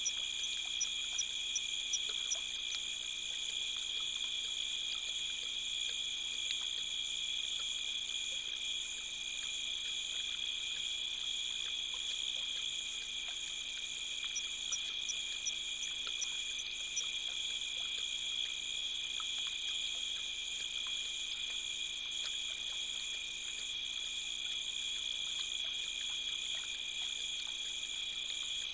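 Steady chorus of night insects trilling at several high pitches, with short runs of rapid high ticks near the start and again around the middle.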